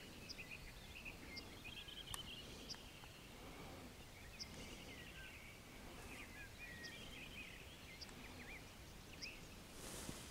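Faint spring chorus of many songbirds: overlapping chirps, trills and short high whistles from several birds at once.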